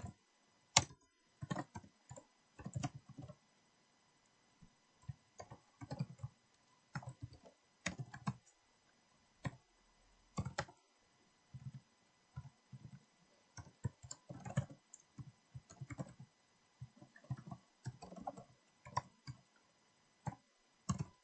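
Typing on a computer keyboard: irregular runs of keystrokes with a couple of short pauses.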